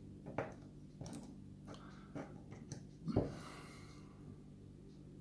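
A few light clicks and taps from handling the small pins and parts of a disassembled lock, the loudest about three seconds in, over a steady low hum.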